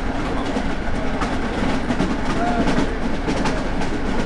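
Passenger train running, heard from inside the carriage: a steady low rumble with scattered clicks and knocks, and a faint short squeak about halfway through.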